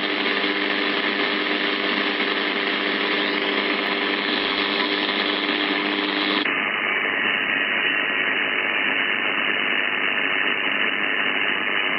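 Static from an Icom IC-7300 HF transceiver receiving on the 80-metre band: a steady hiss with a low hum under it. About six and a half seconds in, the sound abruptly turns duller and the hum fades as the radio switches from AM to lower sideband and its receive filter narrows.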